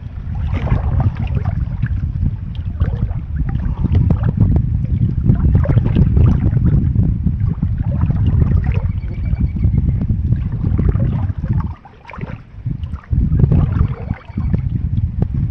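Wind buffeting the microphone in a heavy, uneven low rumble, dropping away briefly about three quarters of the way through. Over it come the light splashes and drips of canoe paddle strokes in calm water.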